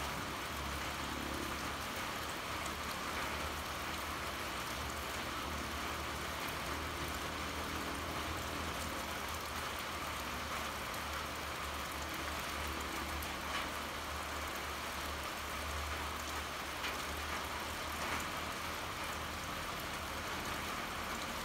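Steady pouring rain with a constant hiss of falling drops, a few louder drop ticks late on, and a low steady rumble underneath.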